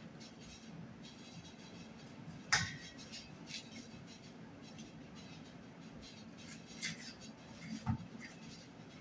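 A few sharp clicks and knocks of kitchen utensils against dishes while zucchini are hollowed out, the loudest about two and a half seconds in and another pair near the end, over a low steady hum.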